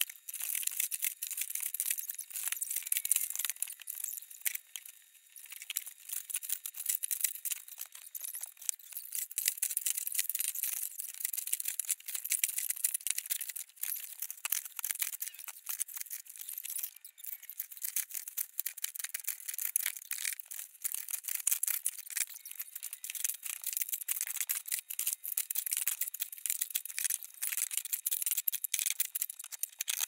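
Steady crinkling and rattling of plastic wrappers, packaging and bags as household trash is gathered by hand into plastic garbage bags. It sounds thin and trebly, a dense run of small crackles with no low end.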